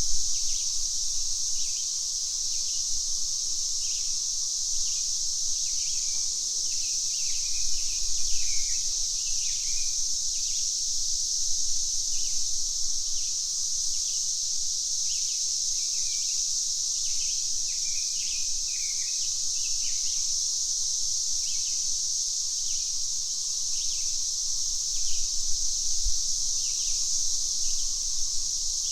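Cicadas buzzing in a steady high drone, the loudest sound, with birds chirping over it in short, repeated calls that come in quick clusters now and then.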